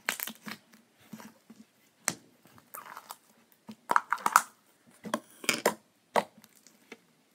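Sticky clicks and pops of homemade glitter-glue slime being worked with the fingers, pulled out of a small plastic tub and pressed on a table, loudest in a quick cluster about four seconds in.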